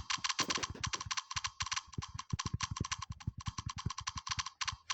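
Key-click sound of a phone's on-screen keyboard app sounding with each tap while typing, in a fast run of clicks, at times about ten a second, with a few short breaks. Each click comes with the dull tap of a fingertip on the screen.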